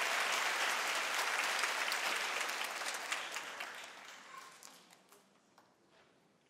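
Audience applauding, the clapping thinning to a few scattered claps and dying away about five seconds in.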